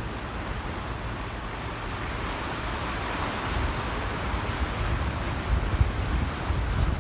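Rough sea surf washing in, stirred up by an approaching typhoon, a swell of wash rising and easing about halfway through. Strong wind buffets the microphone as a low, uneven rumble.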